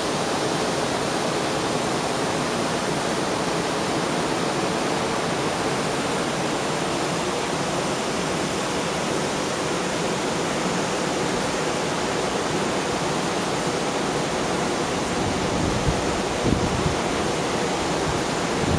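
Water of a rocky cascade rushing steadily. A few low wind buffets hit the microphone near the end.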